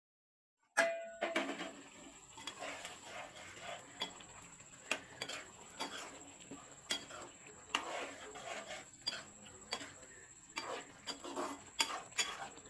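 Kitchen utensils clinking and knocking against cookware in irregular sharp taps, as in stirring or scraping a pot, after under a second of dead silence at the start.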